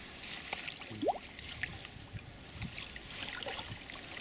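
Water splashing and trickling as a catfish is slipped back into the lake, over a low, uneven wind rumble on the microphone. A short rising whistle-like sound comes about a second in.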